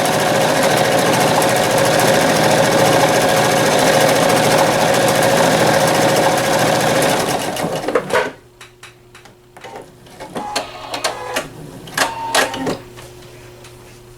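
PFAFF Quilt Expression 4.0 sewing machine running steadily as it sews decorative stitch pattern 156, then stopping abruptly about eight seconds in. A few scattered clicks and light knocks follow.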